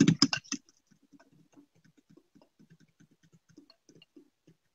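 A utensil stirring a thick ricotta-and-egg mixture in a glass bowl: a few sharp clinks against the glass near the start, then faint, irregular soft taps as the mixing goes on.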